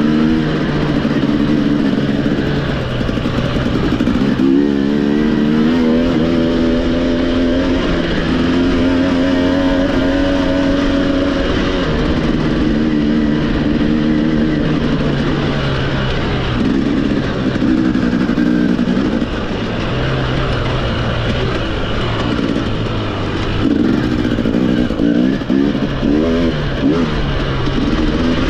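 Racing dirt bike engine under hard throttle, its pitch repeatedly climbing and falling as the rider accelerates, shifts and backs off.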